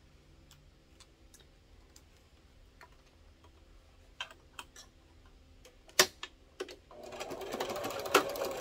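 Light clicks and taps as pinned fabric is handled and set under the presser foot, with one sharp click about six seconds in. About seven seconds in, a domestic sewing machine starts stitching steadily, basting a seam.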